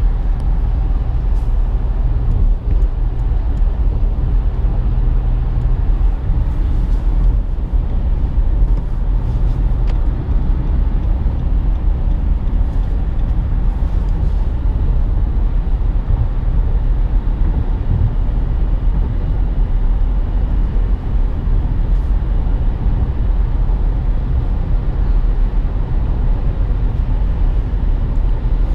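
Cabin noise of a 2017 Nissan Rogue cruising at highway speed on cruise control: a steady low rumble of tyres on the road, with a few faint ticks.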